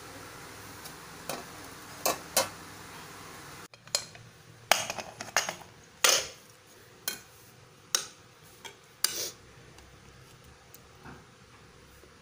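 Steady sizzle of oil frying, with a few sharp taps of a steel strainer against the pan. It cuts off suddenly and gives way to a series of sharp metallic clinks, a steel spoon knocking against a steel pressure cooker and steel plate while serving kuruma.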